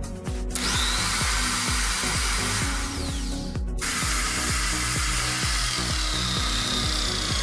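Electric drill with a bit boring into material, starting about half a second in, stopping briefly near the middle, then running again. Background music with a steady beat plays under it.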